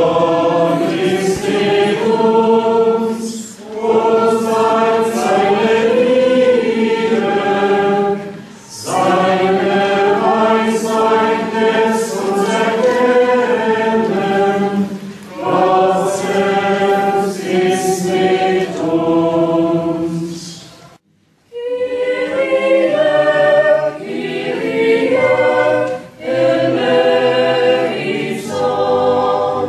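Group of men and women singing together unaccompanied, in long phrases with short breaks for breath; the singing stops briefly about two-thirds of the way through.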